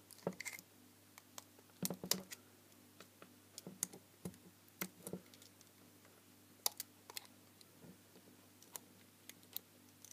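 Irregular small clicks and scrapes of a precision screwdriver tip probing and picking around the edge of an LED spotlight's three-LED module and housing, with quiet gaps between.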